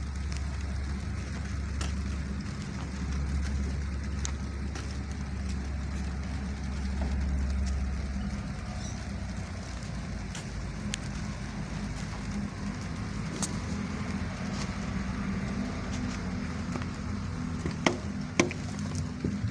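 A motor running with a steady low hum, its deepest part dropping away about eight seconds in, with scattered sharp clicks and taps over it and two louder knocks near the end.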